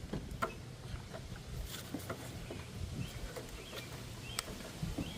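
Light clicks and rustling of hands handling a headlight bulb and its wiring connector. Several sharp clicks are scattered over a low handling rumble.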